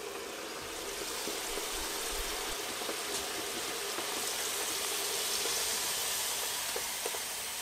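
Crinkle-cut fries sizzling and bubbling in hot oil in an ANABAS KFM-2500 electric deep fryer: a steady hiss that grows a little louder midway through.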